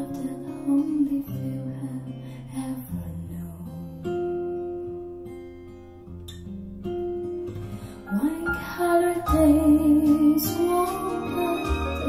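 Pop song with guitar and singing, played back through JBL Studio 530 bookshelf speakers. It dips quieter in the middle and swells louder for the last few seconds.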